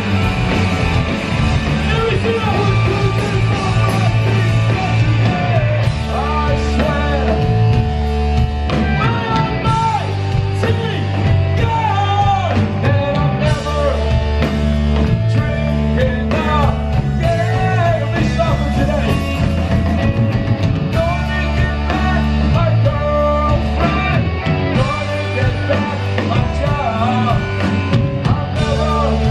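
Live punk rock band playing loud: electric guitars, bass guitar and a drum kit, with singing over them.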